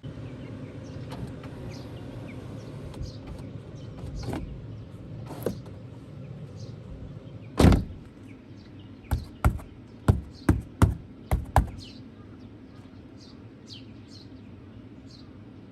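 One loud thud, then a quick run of six sharp knocks or clicks over steady background noise, with faint short bird chirps near the end.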